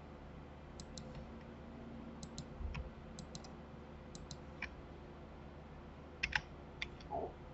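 Faint, scattered clicks of a computer mouse and keyboard, often in quick pairs, over a low steady background hum.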